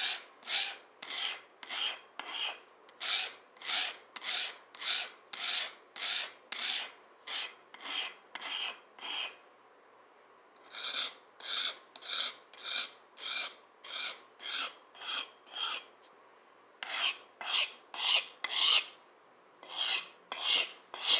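Knife blade being sharpened, stroked back and forth against a sharpener in rhythmic rasping strokes about two a second, broken by two brief pauses.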